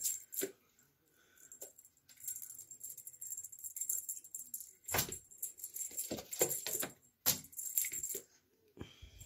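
Cat playing with a fishing-rod wand toy among shoes: irregular bursts of rattling, clicking and scuffling as it pounces on and bats the toy, with quiet gaps between.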